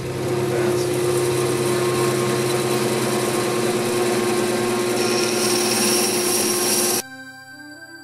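Wood lathe running with a steady hum and a hissing noise over it, cut off abruptly about seven seconds in, after which soft ambient background music plays.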